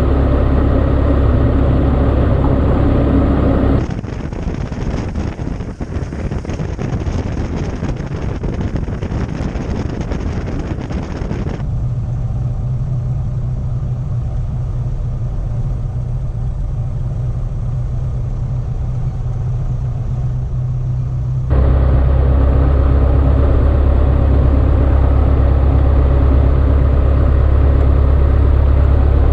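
Cessna 152's four-cylinder Lycoming O-235 piston engine running steadily with a low drone. The sound changes abruptly about 4, 12 and 22 seconds in, turning hissier and more ragged, then thinner, then back to the full drone, as between different microphone positions.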